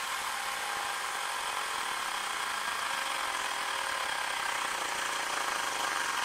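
Xiaomi Mi portable battery-powered air compressor running steadily as it pumps a bicycle tyre up toward its preset 4.5 bar.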